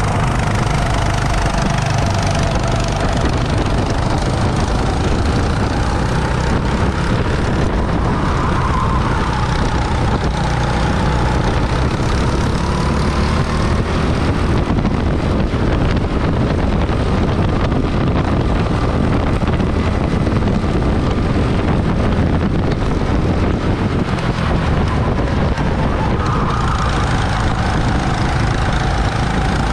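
Rental go-kart driving at racing pace, heard from the driver's seat: a steady heavy rumble with a whine whose pitch rises and falls several times as the kart speeds up and slows.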